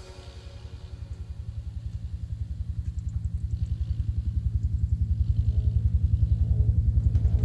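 Tractor diesel engine running, a low, even throb that slowly grows louder.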